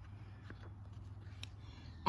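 Faint handling of a paperback picture book as a page is turned: two faint clicks over a quiet low steady hum.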